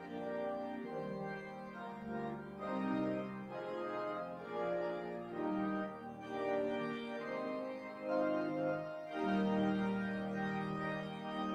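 Church organ playing a slow piece of held chords that change every second or so.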